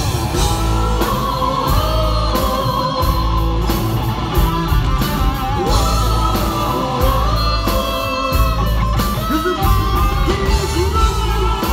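Live rock band playing loud, with a lead electric guitar played through a talk box so that its notes take on a vocal, singing quality.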